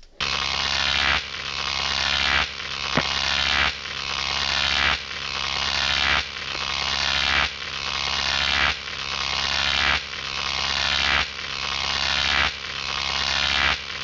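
Looped electronic outro sound: a buzzing, hissy swell that rises and cuts off about every second and a quarter, repeated over and over.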